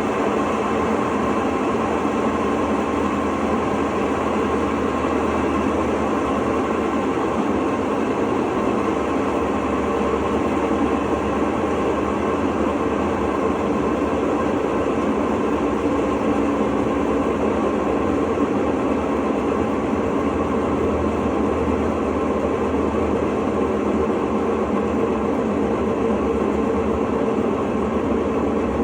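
Electrolux LTE09 top-loading washing machine in its intermediate spin cycle, running with a steady rumble from the drum bearing, the sign of a worn bearing.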